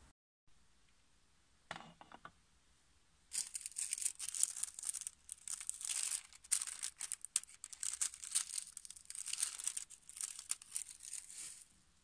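Thin gold-coloured metallic foil crinkling as it is handled, a dense crackle from about three seconds in until near the end. A few short clicks about two seconds in.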